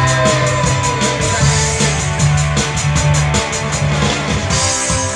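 Rock band playing: electric guitar over a drum kit with a quick, steady cymbal beat and a bass line. A new held note comes in near the end.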